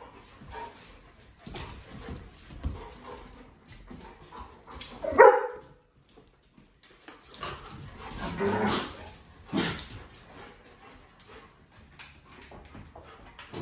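Dogs playing rough on a hard floor: scuffling and claw clicks, with one short loud bark about five seconds in, then a longer noisy scuffle around eight to ten seconds.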